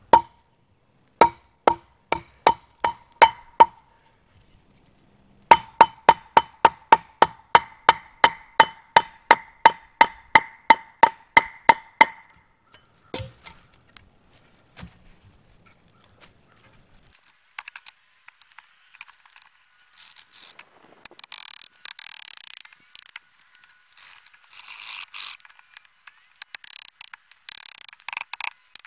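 Wooden mallet striking the back of a hatchet to drive it into a wooden pole: sharp knocks with a ringing note, about two a second at first, then a faster run of about three a second for six or seven seconds. Later come irregular rasping, scraping strokes of the blade working the wood.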